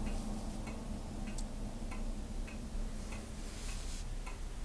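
Clock ticking steadily, about three ticks every two seconds, over a low steady hum.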